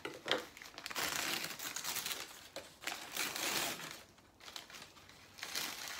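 Paper wrapping rustling and crinkling as it is pulled off a potted plant, in uneven bursts, the longest lasting from about one to four seconds in and a shorter one near the end.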